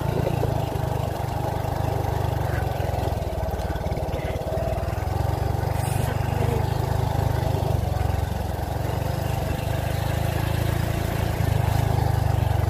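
Motorcycle engine running steadily, heard from the rider's seat as the bike moves along.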